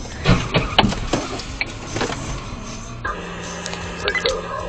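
Car collision: a quick run of loud bangs and crunches in the first second or so, followed by scattered smaller clicks and rattles.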